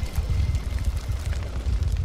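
Logo-reveal sound effect: a deep rumble with faint glittering ticks above it, beginning to fade near the end.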